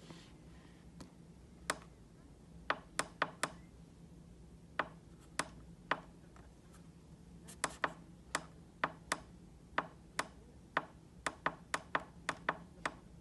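Push buttons on a Homtime digital alarm clock clicking as the plus/minus button is pressed again and again to step the alarm time. Sharp single clicks come at uneven spacing, growing quicker, about three a second, near the end.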